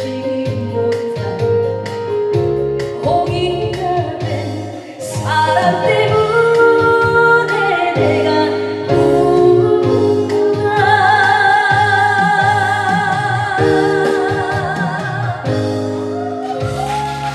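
A woman sings the closing line of a Korean trot ballad over electronic organ accompaniment. She ends on a long held note with vibrato, and near the end the organ plays on alone.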